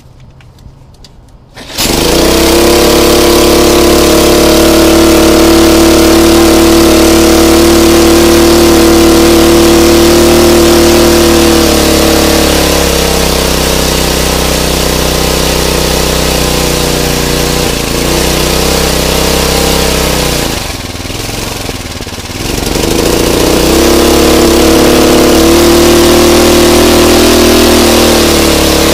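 Briggs & Stratton 5 hp (196 cc) single-cylinder four-stroke lawn mower engine, freshly primed, starting up about two seconds in and running loud and fast. Around halfway its speed drops and it runs slower; after about twenty seconds it sags almost to a stall, then picks back up to speed.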